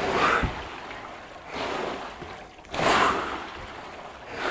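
Water rowing machines in use: the water in their tanks swishes in a swell about every second and a half with the short strokes, along with heavy breathing from the rowers.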